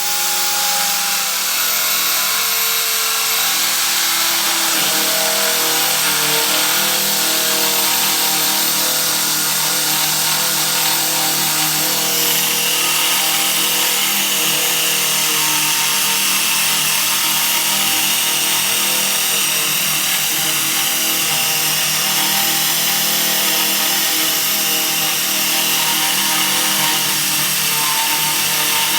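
Electric power tool running steadily at constant speed: an even motor hum with a dense hiss over it, loud throughout.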